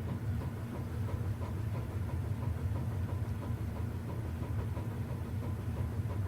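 Lasko box fan switched off, its five-bladed rotor still coasting down and moving air, heard as a steady low rumble.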